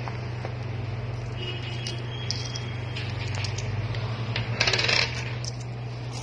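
Coins clinking as they are handled on a counter, with a dense half-second rattle about three-quarters of the way through, over a steady low hum.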